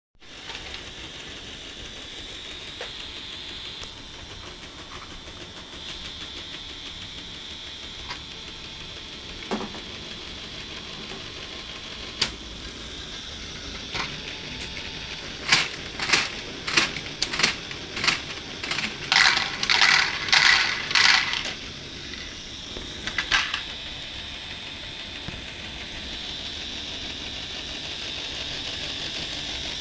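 LEGO train loader's geared-down motor and gear train running with a steady whine. About halfway, a few seconds of clattering as small plastic balls tumble from the tipping dumper into the train wagon, with single clicks before and after.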